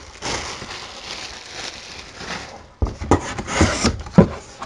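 Plastic packaging bag crinkling as parts are lifted out of a cardboard box, then rustling with a series of knocks as hands rummage among the box's cardboard flaps and packing.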